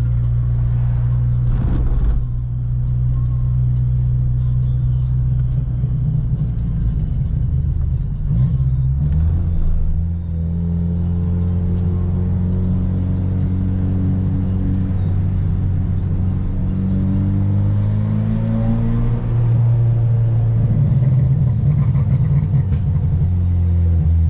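Car engine and road rumble heard from inside the cabin while driving. The engine's pitch rises steadily for several seconds as the car accelerates, then drops around the gear change.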